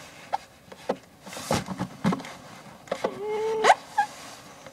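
Rummaging through things on shelves: scattered clicks and knocks of objects being moved, a rustling sweep about a second and a half in, and a brief steady pitched squeak or hum about three seconds in, ending in a knock.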